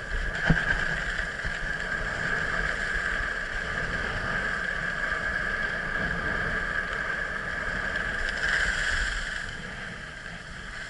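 Skis running over groomed snow during a descent: a steady hiss and rumble with wind on the camera's microphone. A single sharp knock comes about half a second in.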